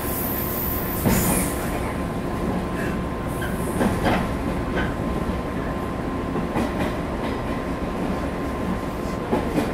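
JR 115 series electric train standing at a station, its equipment giving a steady hum and noise, with a few short knocks and clicks scattered through.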